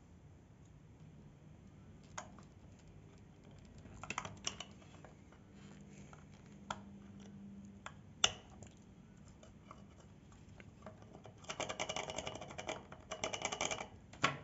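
Handling noise from an opened plastic LED bulb: scattered light clicks and taps as fingers and a small metal tool work at its circuit board, the sharpest about eight seconds in. Near the end come a couple of seconds of rapid clicking and rustling.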